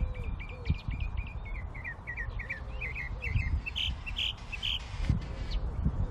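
A small songbird singing in the background: a quick run of chirps, then three or four louder, higher notes about four seconds in, over a steady low rumble.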